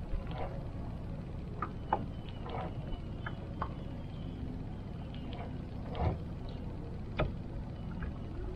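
Steady low rumble of a fishing boat on the water, with a few light clicks and knocks scattered through it.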